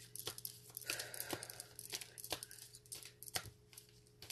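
A deck of reading cards being shuffled by hand: irregular papery flicks and rustles, with a faint steady hum underneath.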